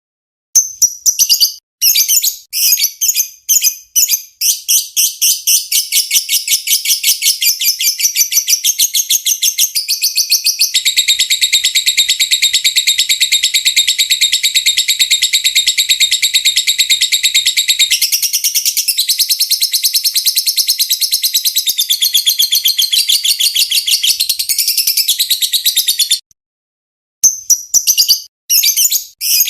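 Fighter lovebird singing a long 'ngekek': a few short bursts of rapid high-pitched chattering, then one unbroken trill of very fast ticking chirps lasting about twenty seconds, which breaks off and gives way to short bursts again near the end.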